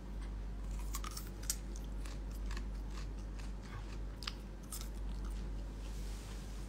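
A person biting and chewing a raw carrot: irregular crisp crunches, several a second.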